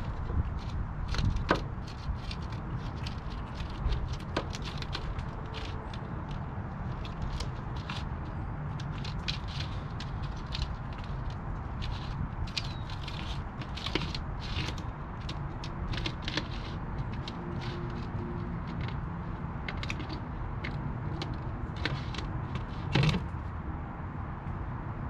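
California ground squirrel eating nuts and seeds close by: a fast, irregular run of crisp clicks of chewing, stopping shortly before the end, over a steady low rumble.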